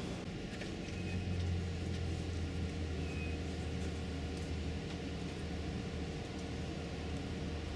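Car running slowly, heard from inside the cabin: a steady low engine and road hum.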